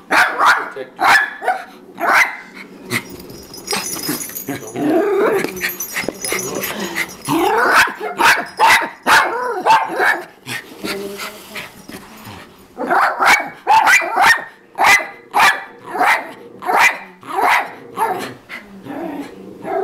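Dog barking over and over at an animated singing toy puppy, in short sharp barks that come in a quick steady run in the second half.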